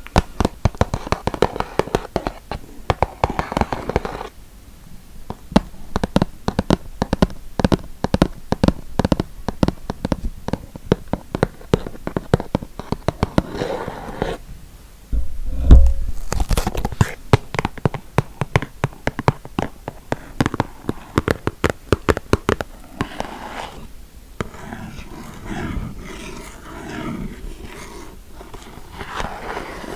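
ASMR tapping on objects: fast runs of crisp taps, with a heavy low thump about halfway through and softer scratching and rustling toward the end.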